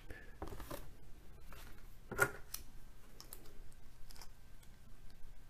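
Small plastic toy top being handled: scattered light clicks and taps, the sharpest about two seconds in.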